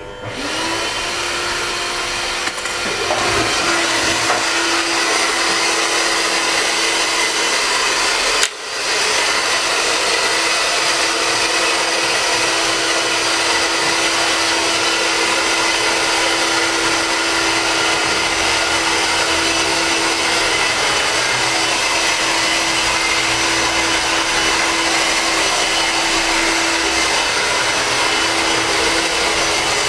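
Corded electric hair clippers running with a steady buzzing hum as they cut through a long beard. The sound breaks off for an instant about eight and a half seconds in, then carries on unchanged.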